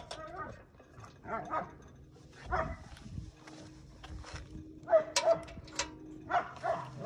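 A dog barking, a string of short barks at irregular intervals.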